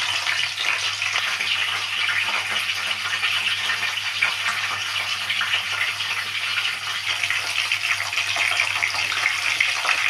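Masala-stuffed bell peppers sizzling in hot oil with curry leaves in an aluminium pot: a steady frying hiss with fine crackles throughout.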